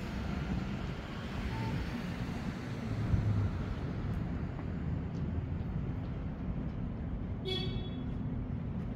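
City street ambience: a steady rumble of road traffic. About seven and a half seconds in comes one brief high-pitched squeak.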